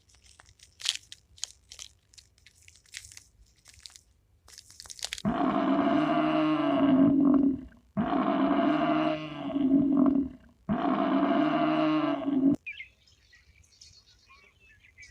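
A large animal's long low call, given three times in a row, each about two seconds and cutting off sharply, after a few seconds of faint crackling clicks.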